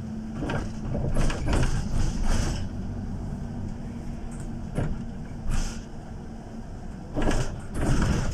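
City bus heard from inside while driving: the engine and drivetrain run with a steady drone and a faint held whine. The bus's body and fittings rattle and knock in several short clusters over the road surface.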